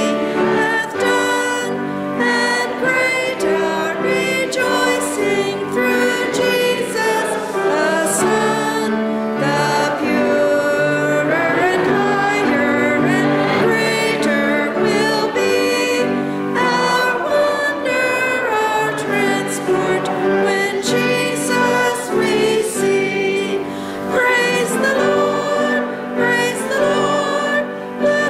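Congregation singing a hymn together, accompanied by piano.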